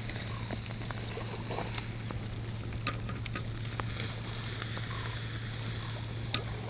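Sockeye salmon fillets sizzling steadily on a wire grill over campfire embers, with a few sharp clicks scattered through.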